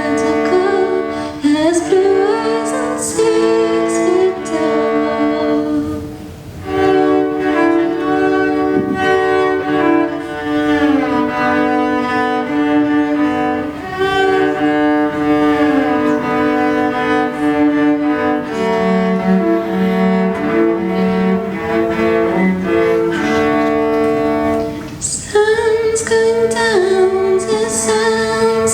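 A cello plays a passage of sustained bowed notes, moving in steps, with a brief dip about six seconds in. A female voice joins again with vibrato near the end.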